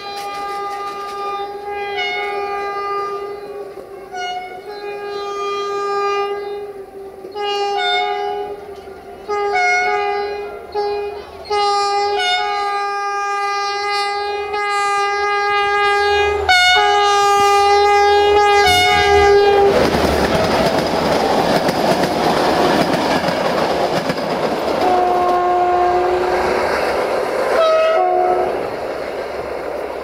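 Horn show on the air horns of CFR locomotive 64-0920-0: a long run of horn blasts, some held, some short, coming quicker about twelve seconds in. About twenty seconds in the train runs past with loud noise of engine and wheels on the rails, with two more short horn calls before the coaches roll away.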